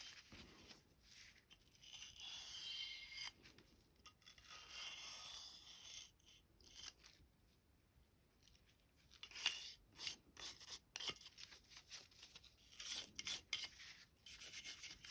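Rubbing and scrubbing on a pistol's slide as it is wiped clean, in hissy strokes for the first several seconds, then light clicks and knocks of metal parts being handled.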